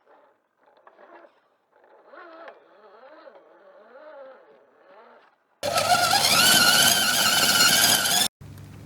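Electric motor and gears of an RC rock crawler whining, the pitch rising and falling with the throttle. About five and a half seconds in, a much louder burst of motor whine and drivetrain noise rises in pitch for under three seconds and cuts off abruptly, leaving a low steady hum.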